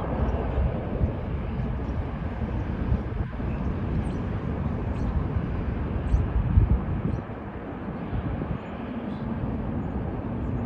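Jet airliner taking off, its engines a steady, noisy rumble at takeoff power, easing slightly about seven seconds in.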